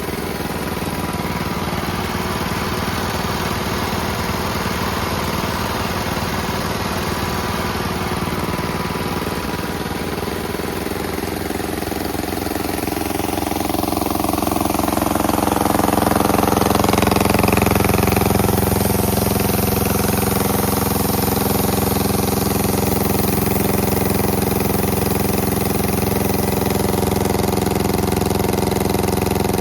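Small vintage Wisconsin air-cooled engines running steadily, growing louder about halfway through and holding there.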